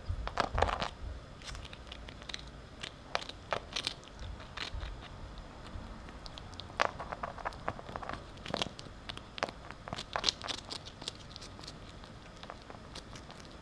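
Ferret chewing a hard treat: irregular sharp crunches and clicks, coming in clusters with short pauses between.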